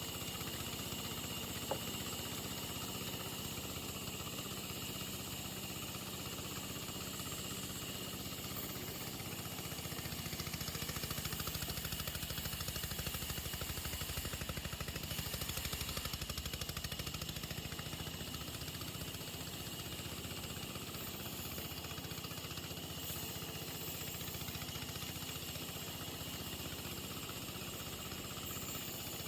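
An engine running steadily with an even drone, getting a little louder about ten seconds in and settling back a few seconds later.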